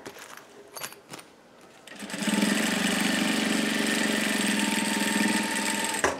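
A few light clicks of fabric and plastic being positioned, then about two seconds in an industrial sewing machine starts and runs steadily at an even speed for about four seconds, stitching a straight stay seam, and stops just before the end.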